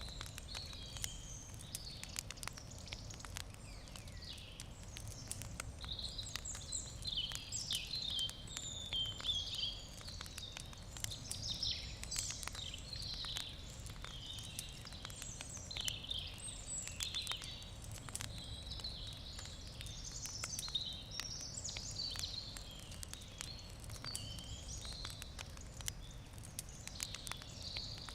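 Wood campfire crackling with frequent sharp pops and snaps, over continuous twittering birdsong and a steady low rumble.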